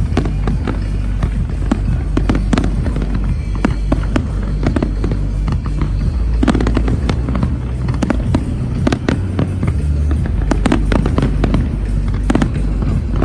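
Fireworks display: frequent sharp bangs and crackles bursting in quick succession, over a music soundtrack with a heavy bass line.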